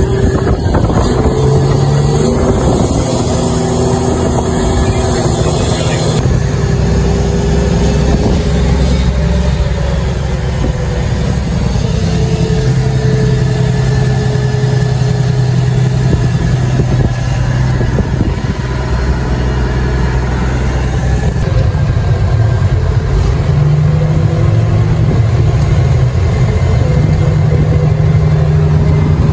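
Vehicle engine running with road noise, heard from inside the cab while driving; the engine note holds steady and rises in pitch about three-quarters of the way through.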